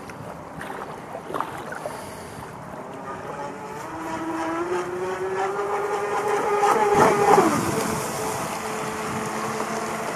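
Motor of a radio-controlled model speedboat running at speed: a whine that climbs slightly in pitch as the boat approaches, is loudest about seven seconds in as it passes close, then drops in pitch as it goes by.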